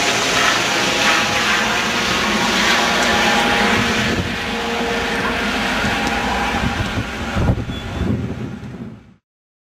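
Medical helicopter's rotor and turbine running loud and steady overhead as it climbs away. The sound fades over the last second or so and then cuts off suddenly.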